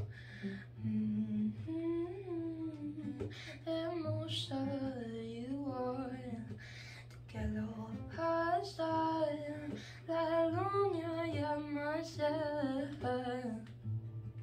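A woman singing a melody over a strummed Yamaha acoustic guitar.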